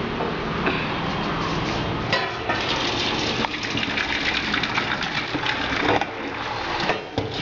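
Boiled noodles and their hot cooking water poured from a large steel pot into a perforated steel colander in a steel sink: water gushing and splashing through. Short metallic clinks and knocks come from the pot and colander from about two seconds in.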